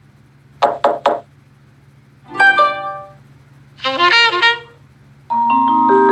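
Samsung Galaxy Note8 notification tones played one after another: a quick three-note pluck, a short bright chime, a warbling chime, and near the end a longer sustained chord that starts up.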